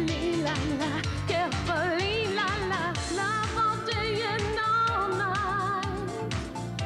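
Up-tempo cabaret revue music: a wavering vibrato lead melody over a steady dance beat with a pounding kick drum.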